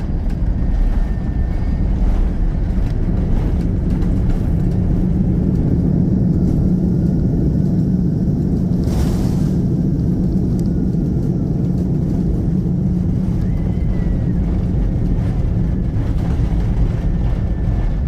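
Airliner landing in strong wind: a loud, steady low rumble of engines and rushing air, with a brief broad rush of noise about nine seconds in.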